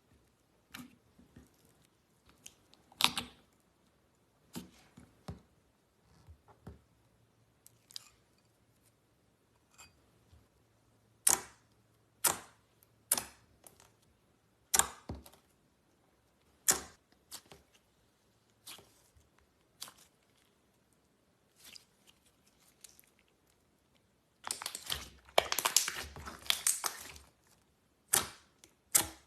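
Slime being handled close to the microphone: scattered sharp clicks and pops, then a dense crackling run near the end.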